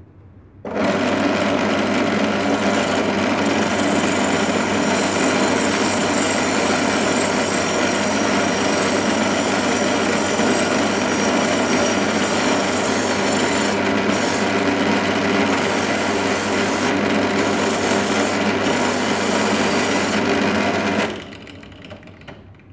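Bench drill press spinning a wire cup brush against an aluminium sander base plate: a loud, steady scraping hiss over the motor's hum, starting suddenly about a second in. The high hiss drops out briefly a few times in the second half, and the sound dies away near the end.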